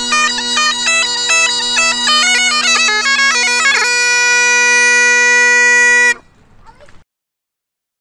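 Highland bagpipes playing a tune over their steady drones, the chanter running through quick notes and then holding one long note for about two seconds. The pipes cut off about six seconds in, a faint tail follows for under a second, and then there is complete silence.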